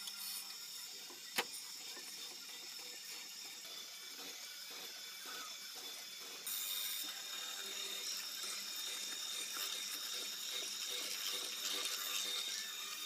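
Benchtop hollow-chisel mortising machine running and cutting into a timber, its motor giving a steady whine under the noise of the chisel chewing out wood chips. A sharp click comes about a second and a half in, and the machine gets louder about six and a half seconds in.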